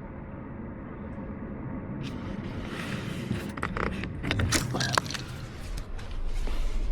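Car running, heard from inside the cabin: a steady low road and engine rumble, with scattered clicks and rattles from about two seconds in. The rumble grows stronger near the end.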